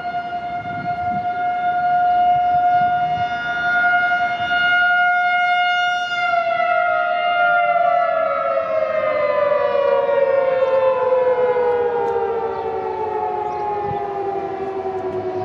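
Federal Signal 2001-SRN outdoor warning siren sounding a single steady tone for its monthly test, its level swelling and fading as it rotates. About six seconds in it begins winding down, the pitch falling steadily.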